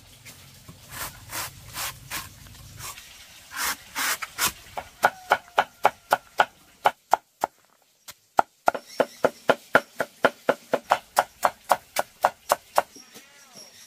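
Rapid, evenly paced chopping strikes on wood, about four to five a second, after a few slower, irregular knocks. The run breaks off for about a second near the middle, then carries on until shortly before the end.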